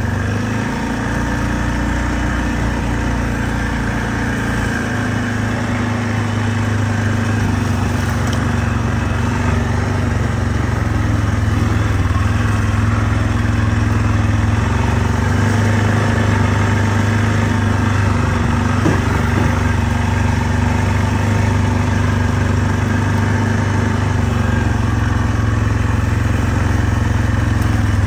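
Four-wheeler (ATV) engine running steadily as the machine is ridden, with small shifts in engine pitch along the way.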